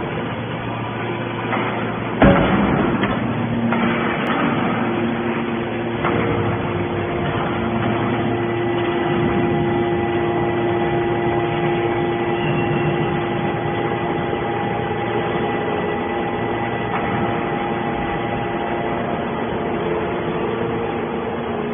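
Hydraulic metal baler running: a steady hum with several held tones from its hydraulic pump and motor, and one loud bang about two seconds in.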